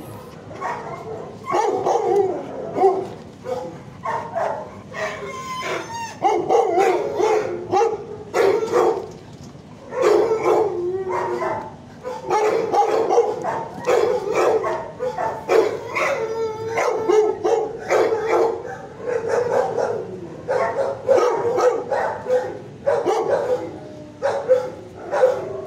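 Shelter dogs barking and yelping over and over, one call after another with only brief pauses.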